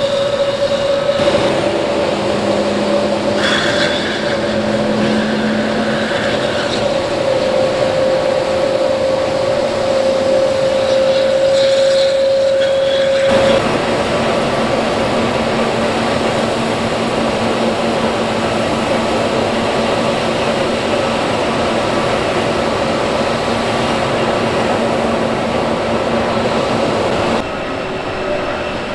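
Airbus A321 turbofan engines running steadily after start-up: a constant whine over a broad rushing noise. The tone and balance change abruptly about halfway through and again near the end.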